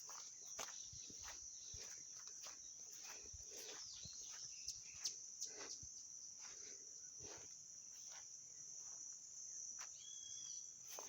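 A steady, high-pitched chorus of crickets or similar insects, with scattered light clicks and rustles throughout.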